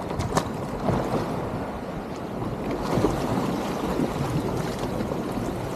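Small waves washing over a shallow sandy shore, with wind buffeting the microphone and a couple of brief clicks about half a second in.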